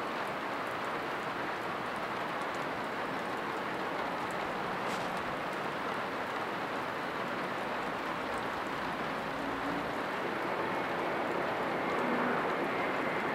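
Steady rain falling, an even hiss. A faint low hum comes in during the second half, and the sound grows slightly louder near the end.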